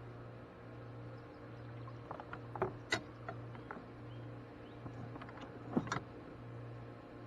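Scattered light knocks and clicks from handling fish and gear in a kayak, loudest about three seconds in and again near six seconds, over a low steady hum.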